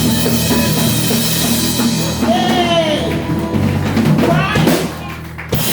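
Band music with a drum kit and bass, a voice gliding up and down over it in the second half; the music drops away briefly near the end.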